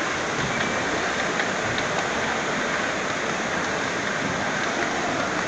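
5-inch gauge ride-on miniature train rolling along its track: a steady rumbling hiss of wheels on rails with a few faint clicks.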